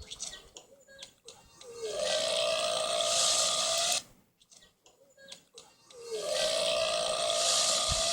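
Two long, drawn-out burps played as dinosaur burps, each held at a steady pitch for about two seconds. The first comes about two seconds in and the second starts about six seconds in, with short clicks in the gap between them.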